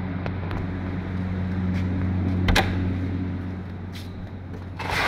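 Steady low electric hum of running fans, with a sharp click about halfway through and a burst of rushing noise near the end.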